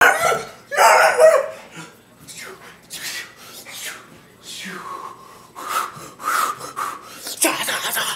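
A man's vocal karate shouts and sharp huffing exhales, a string of short bursts about every half second to a second.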